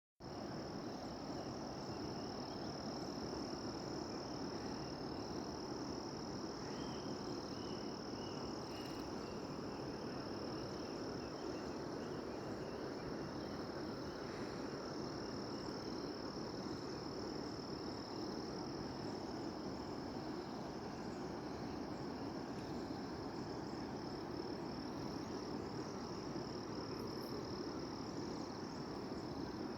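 Insects trilling steadily at one high pitch over a constant rushing background noise.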